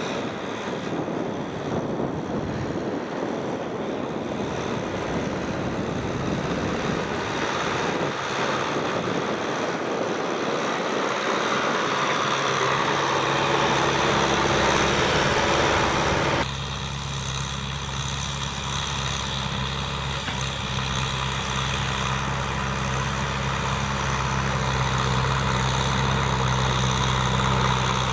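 Kubota M6040SU tractor's four-cylinder diesel engine running steadily while working a field. A rushing noise covers it at first. The engine's low, even note comes through clearly from about halfway, with an abrupt change in the sound a little after the middle.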